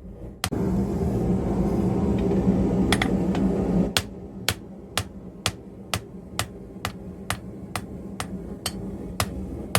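Hammer blows on hot iron at an anvil, struck in a steady rhythm of about two a second. A steady hum runs under the blows for the first few seconds, then cuts off, leaving the strikes alone.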